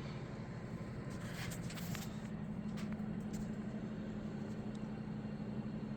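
Steady low machine hum, with a few light clicks and scrapes of handling between about one and three seconds in.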